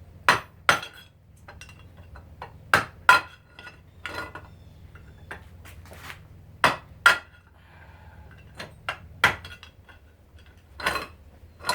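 Hammer blows on metal, driving the bearing out of a garbage disposal's motor housing. The strikes come mostly in pairs, each with a short metallic ring, about a dozen in all, over a faint steady low hum.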